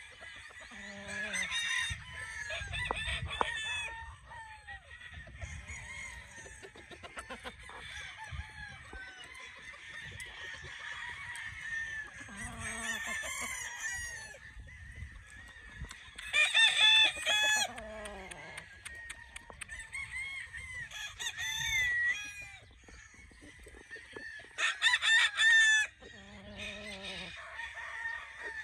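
Tethered game roosters crowing one after another, some far off and some close, with clucking in between. The loudest crows come a little past halfway and near the end.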